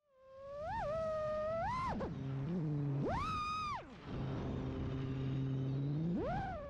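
FPV freestyle quadcopter's NewBeeDrone Flow 2306.5 1850KV brushless motors and props whining. The pitch swoops up on throttle punches about a second in, near two seconds, in a longer burst around three seconds and again near the end, and drops back to a low hum between them.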